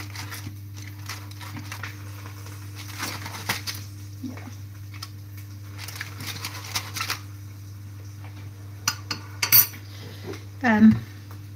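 Cutlery scraping and clicking against a foil-lined baking tray, with foil crinkling, as roasted salmon is picked apart. There are a few sharper clicks about nine seconds in, all over a steady low hum.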